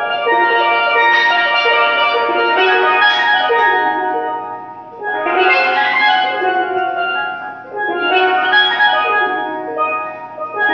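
Steelpan playing rolled, ringing chords in phrases that swell and ease off, dipping briefly about five and eight seconds in.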